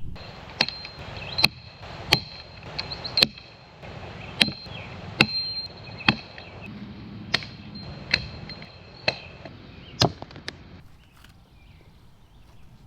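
Firewood being chopped: a blade strikes wood about eleven times, roughly once a second, and the strikes stop about ten seconds in.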